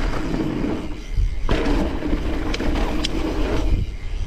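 Mountain bike riding a dirt jump trail, with tyre and wind rumble on the bike-mounted microphone. The rumble drops out briefly about a second in and near the end as the bike leaves the ground over jumps. It comes back with a sharp clatter of the landing about a second and a half in, and a couple of light rattles follow.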